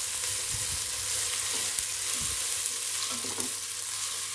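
Onion-tomato masala sizzling steadily in hot oil in a non-stick pot, with a wooden spatula scraping through it. The freshly added chilli powder, garam masala and turmeric are being fried until their raw smell cooks off.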